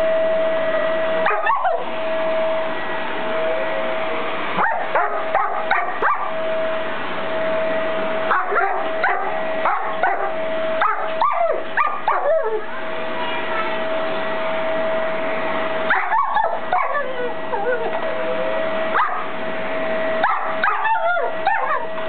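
German shepherd barking, yipping and whimpering at a vacuum cleaner that she treats as a threat, in clusters of sharp calls every few seconds, over the vacuum's steady hum.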